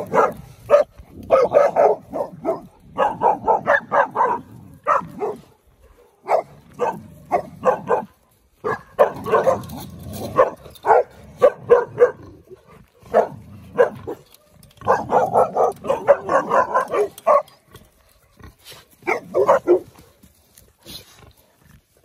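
Sixteen-week-old Cane Corso puppies barking, worked up at pigs across a fence. The barks come in quick runs with short pauses between.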